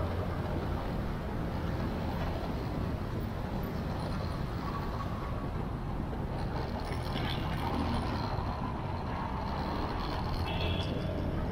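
Motorcycle riding along a city street: steady engine and road noise, with a couple of faint short squeaks about seven and ten seconds in.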